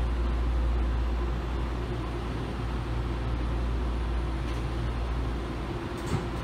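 BART A2 rail car standing at the platform with its doors closed: steady low hum and hiss of its onboard equipment. The low hum drops out about five and a half seconds in, followed by a couple of short clicks near the end.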